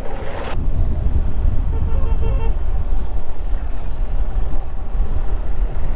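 Motorcycle on the move: heavy wind and road rumble on the rider's microphone, with a brief vehicle horn toot about two seconds in.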